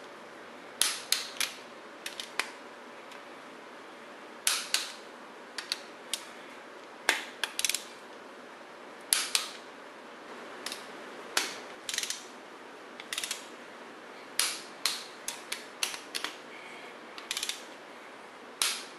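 A 3/8-inch-drive torque wrench ratcheting and clicking as cylinder head bolts are tightened one after another in the torque sequence. The clicks come in short clusters of sharp clicks every second or two.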